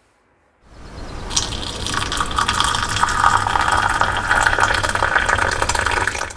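Water pouring steadily into a container, starting about half a second in and cutting off near the end.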